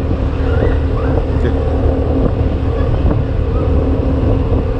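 Vehicle engine running steadily while riding in the open air, with heavy wind rumble on the microphone.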